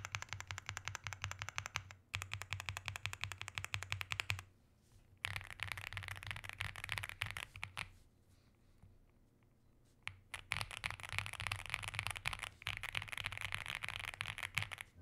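Fast typing on an Aula F75 mechanical keyboard: rapid, dense key clacks in several runs, broken by a short pause about four and a half seconds in and a longer pause of about two seconds around the middle.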